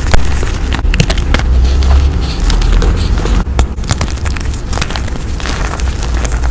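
Hands crushing and crumbling blocks of reformed gym chalk: a dense, irregular run of crunchy crackles and snaps over a low rumble.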